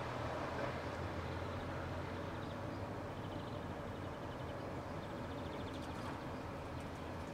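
Steady low rumble of distant engine noise under a faint outdoor hiss, with faint, rapid, high ticking chirps twice.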